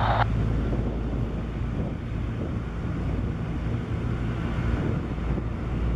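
Single-engine piston propeller airplane droning steadily as it climbs away after takeoff, a little quieter after the first couple of seconds.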